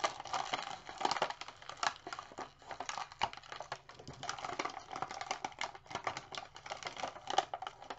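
Plastic action-figure parts being handled: a continuous run of irregular small clicks, taps and rustles as a head on a Hulk figure is swapped for another.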